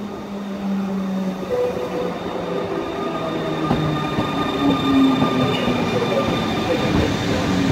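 Newag Griffin EU160 electric locomotive and its passenger coaches rolling past close by as the train slows into the station. The traction motors' whine falls in pitch, over the rumble of the wheels and a thin, steady high squeal.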